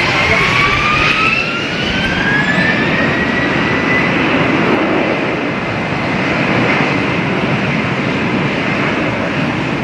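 Jet airliner engines: a whine rising in pitch over the first few seconds, under a steady loud rush of engine noise.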